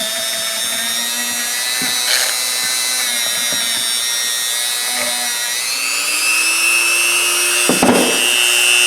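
A small electric power tool running steadily with a whining motor note, working rust off a pair of linesman's pliers; its pitch shifts upward about two-thirds of the way through, with a brief scraping burst near the end.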